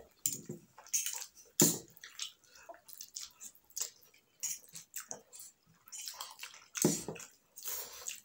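Two people slurping and chewing mouthfuls of chow mein noodles in a run of irregular wet slurps, with the loudest slurps about a second and a half in and again near seven seconds.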